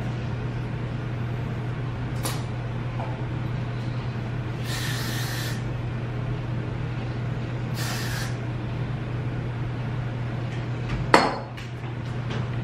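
Aerosol spray from a can sprayed onto hair: two hissing sprays, the first about a second long, the second about half a second. A sharp knock follows near the end and is the loudest sound, all over a steady low hum.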